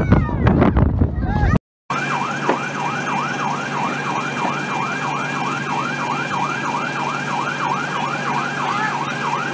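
Loud wind and crowd noise for the first second and a half. Then, after a brief break, an emergency vehicle's siren in a fast yelp, sweeping up and down about three times a second over a steady low engine hum.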